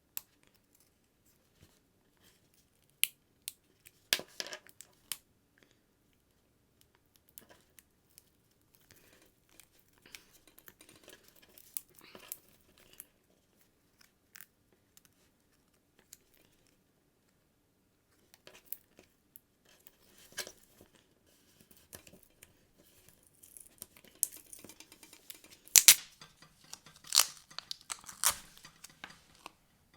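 Scattered sharp clicks, scrapes and tearing as the inside of an Apple MagSafe leather iPhone case is picked apart to dig out its magnets. The sounds come in short irregular bursts and are loudest and busiest near the end.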